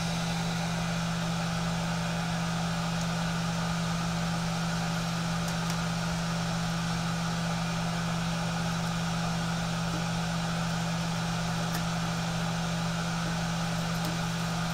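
Steady machine hum, like a running fan, with a constant low tone and no change in pitch or level.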